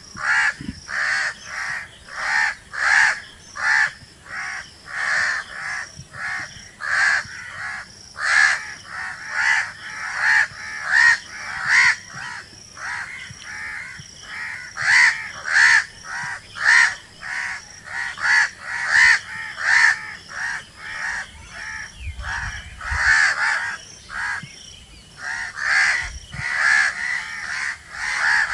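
Crows cawing, short harsh calls following one another about twice a second, with a brief lull a few seconds before the end.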